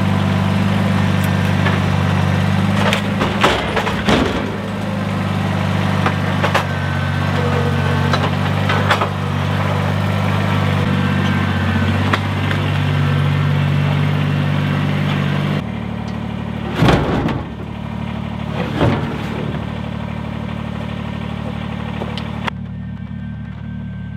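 Compact tractor's diesel engine running steadily as it works its front loader, with several sharp clanks and knocks. About two-thirds through the engine sound drops lower and quieter.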